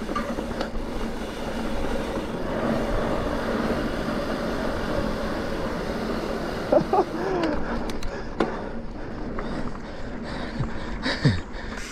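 A mountain bike rolling fast over a dirt singletrack: steady tyre noise with the bike rattling and knocking over rough ground. There are a few short squeals about seven seconds in and again near the end.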